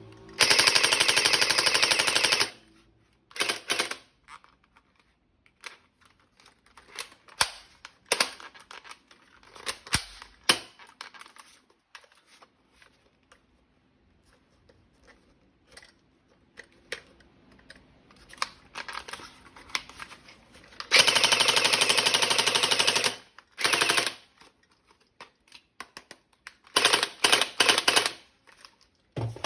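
Toy gun firing in bursts of rapid automatic fire: a two-second burst near the start, another in the second half, and short broken bursts near the end. Scattered clicks and knocks of handling come between the bursts.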